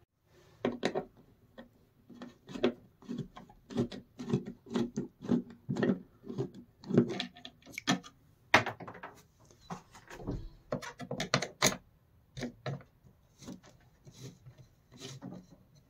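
Screwdriver turning out the mounting screws of a cab ceiling speaker: a run of irregular short clicks and scrapes as the tip works the screw heads and the plastic panel is handled.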